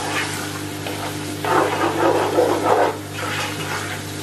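A spoon stirring and scraping saltfish and seasoning in a non-stick pot as it sizzles, in scratchy bursts, the strongest from about a second and a half in, with a steady low hum behind.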